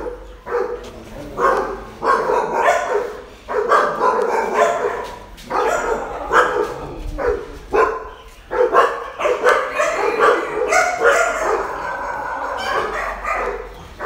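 A dog barking over and over, with short gaps between the barks.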